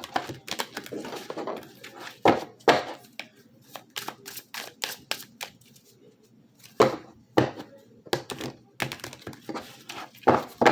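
Tarot cards being shuffled and handled on a table: a run of irregular quick clicks and snaps with a few heavier knocks.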